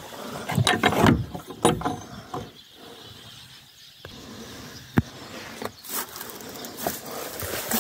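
Metal hook latch and old wooden plank door rattling and knocking as the door is unfastened and opened: a quick run of clicks and knocks at first, then a single sharp knock about five seconds in and a few more near the end.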